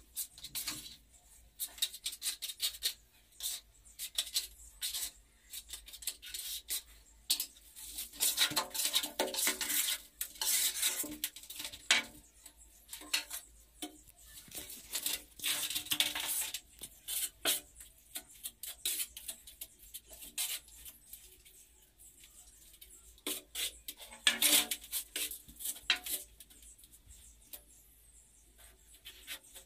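Irregular clinks, taps and scrapes of glazed ceramic wall tiles and tiling tools being handled and set into wet mortar, with a few longer scraping stretches.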